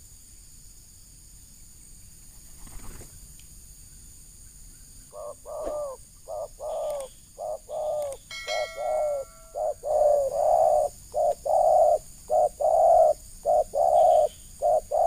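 Spotted dove cooing: after a few quiet seconds, a long run of repeated, rhythmic coo phrases begins about five seconds in and carries on to the end. A brief high-pitched tone sounds about eight seconds in.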